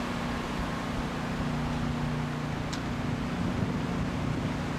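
A steady low mechanical hum under an even haze of noise, with one brief faint click about halfway through.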